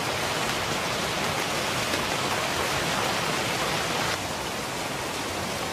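Steady heavy rain, an even hiss, dropping slightly in level about four seconds in.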